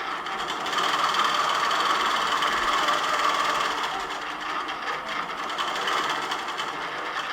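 Longarm quilting machine stitching steadily, a continuous mechanical hum of the needle drive and carriage motors that eases off a little about four seconds in.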